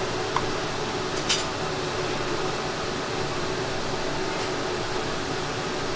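Steady background noise, like a fan or a busy street, with one sharp clink about a second in and a faint tick a few seconds later.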